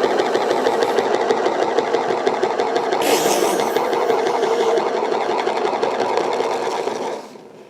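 Glued cluster of glass marbles spinning fast on a hard surface: a steady, rapid rattling whir that drops away sharply about seven seconds in.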